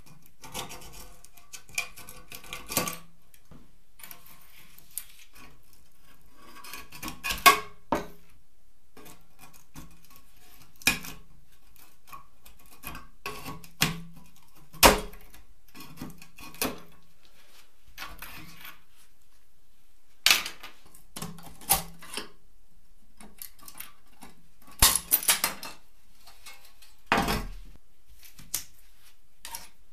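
Flat-blade screwdriver prying and scraping at the rusty metal body of an old toy car, with irregular sharp metallic clicks and clinks as small trim parts come loose and are set down on a wooden workbench.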